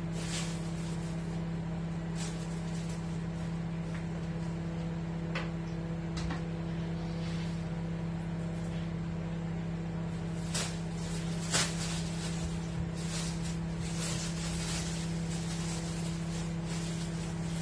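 A steady low hum, with light clicks and rustles of things being handled on a kitchen counter and two sharper clacks a little past the middle.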